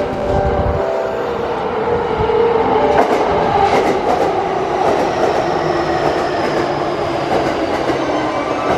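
JR East E233 series Chuo Special Rapid electric train running along the platform at speed: a continuous heavy rumble of wheels on rails with motor whine and clattering over rail joints.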